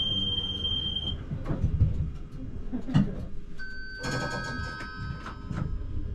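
ČKD Tatra T6A5 tram running, with a low rumble and scattered knocks. A steady high-pitched tone cuts off about a second in, and a ringing chime of several tones sounds for about two seconds starting near the four-second mark.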